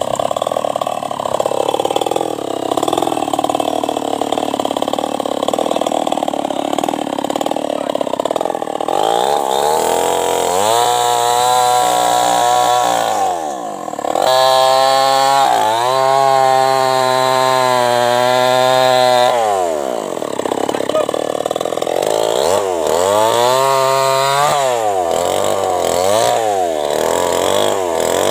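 New West 588 two-stroke chainsaw cutting through a sono wood log, running steadily under load at first. From about a third of the way in, its engine pitch rises and falls several times, dropping briefly twice in between.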